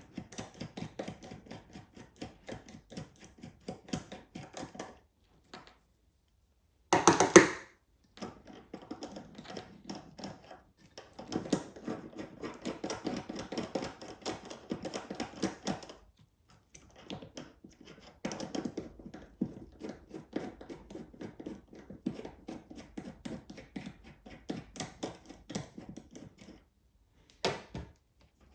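Quick, dense clicking of a hand tool working loose the small nut that holds the voltmeter in a Honda CBX1000 instrument cluster. It comes in runs of several seconds, with a louder clunk about seven seconds in.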